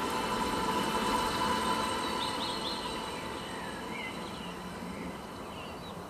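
Steady background hum and noise that slowly fades, with a few faint, short bird chirps from about two seconds in.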